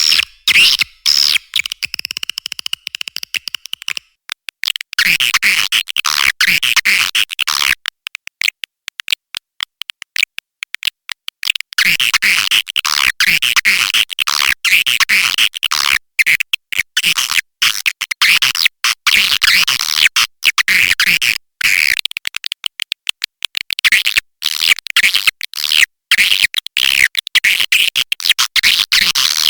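Swiftlet lure call playback: a dense, unbroken run of rapid high twittering chirps and clicks from edible-nest swiftlets, the kind of call sound played in a swiftlet house to draw the birds in to roost and nest. It is chopped by many very short dropouts.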